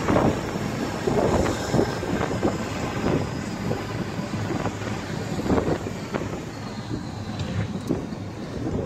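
A moving vehicle's road and engine noise heard from on board, with wind buffeting the microphone in irregular gusts.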